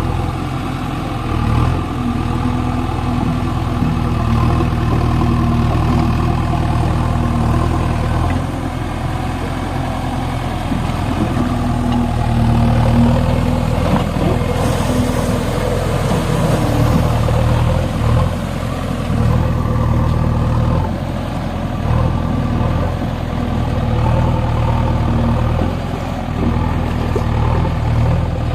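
JCB backhoe loader's diesel engine running, its hum rising and easing several times as the load and engine speed change.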